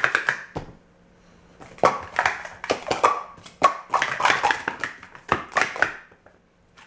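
Speed Stacks plastic cups clattering on a stacking mat as a 3-6-3 sport-stacking sequence is upstacked into pyramids and downstacked again. The sound comes as quick runs of light plastic clicks and clacks, in several bursts separated by short pauses.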